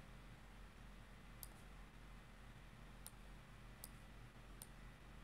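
Faint clicks of a computer mouse, four single clicks at uneven intervals, over a low steady hum of room tone.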